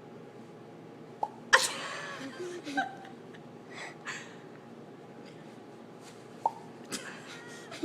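A little girl making a popping noise with her mouth, twice, a short pitched pop each time, each soon followed by a brief burst of her voice.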